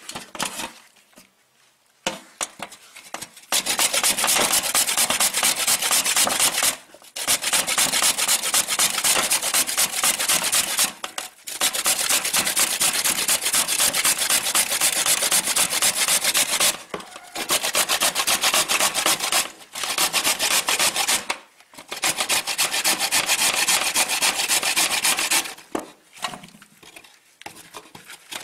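Red carrots being grated on a stainless-steel box grater: fast rasping strokes in long runs, broken by short pauses every few seconds.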